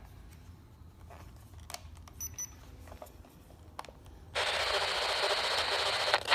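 A handheld spirit box (ghost box radio scanner) switched on about four seconds in, after a few faint button clicks: loud, steady radio static hiss as it sweeps the band.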